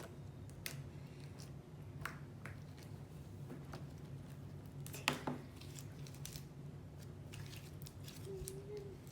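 Slime being squished and stretched by hand: scattered faint sticky clicks and pops, with one louder crackle about five seconds in, over a low steady hum.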